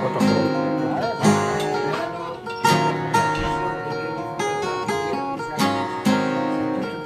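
Acoustic guitar music, with plucked notes and strummed chords recurring about every second and a half.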